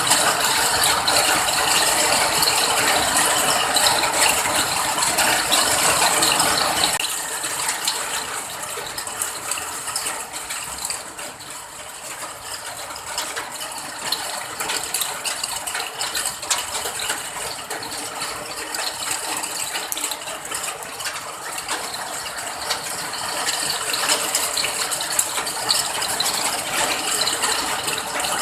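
Rain falling: a dense, even patter of many small drops. About seven seconds in, the deeper part of the sound drops away and the rain thins; it builds again near the end.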